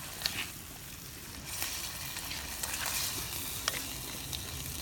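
Green beans and onions sizzling in a hot pan as a spatula stirs them, with a couple of sharp clicks of the spatula against the pan.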